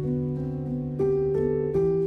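Background instrumental music: a gentle piano-led melody over a held bass note.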